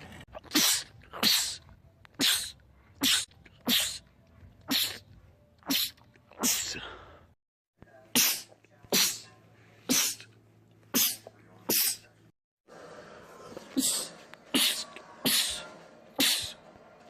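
Men sneezing in rapid fits: a long string of short, sharp sneezes about one a second, in three runs broken by two brief silent gaps.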